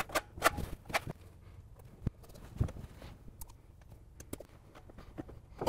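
Scattered clicks and light knocks from handling a caulking gun and putty knife while applying sealant along a tub-wall seam, several close together in the first second, then sparser.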